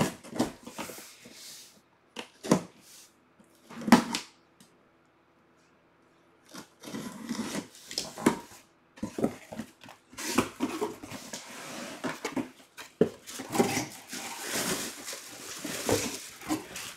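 A few sharp knocks as a boxed full-size football helmet is handled, then, after a short pause, steady rustling and crinkling as its box and plastic wrapping are opened.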